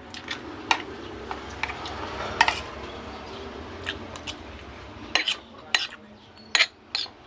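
Spoon and fork clinking and scraping against a plate while eating, a sharp clink every second or so, the loudest few near the end.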